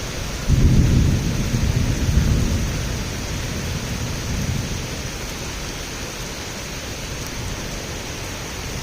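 Thunder rumbling low, starting about half a second in, loudest for the first two seconds and then slowly fading, over the steady hiss of heavy rain.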